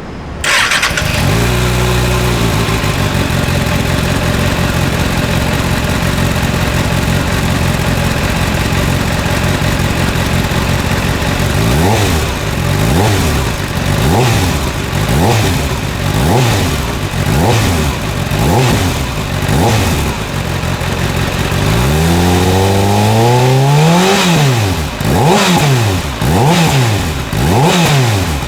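Kawasaki Ninja ZX-6R's inline-four engine running through a Trick Star IKAZUCHI full exhaust. It comes in with a brief rev and settles to a steady idle. About twelve seconds in it starts being blipped about once a second, with one longer, higher rev about two-thirds of the way through.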